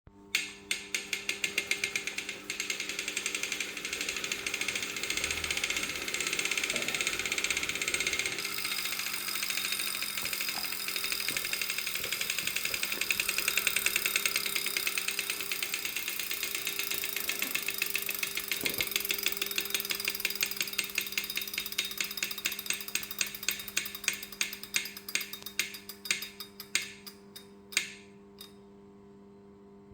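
Wahoo Kickr Core smart trainer spinning with a fast, even clicking over a steady hum; near the end the clicks slow and spread out, then stop. The owner takes the noise for a fault in the brand-new trainer.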